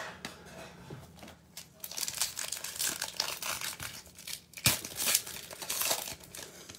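Foil wrapper of a 2021 Prizm Baseball cello pack being torn open and crinkled by hand: crackly rustling that grows after the first couple of seconds, with one sharp snap about two-thirds of the way through.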